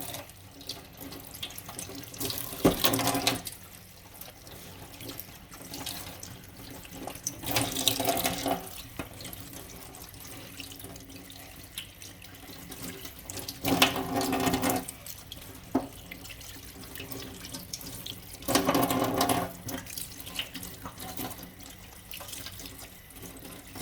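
Water running from a tap into a sink as fresh oregano leaves are rinsed, rising into louder splashing four times for about a second each.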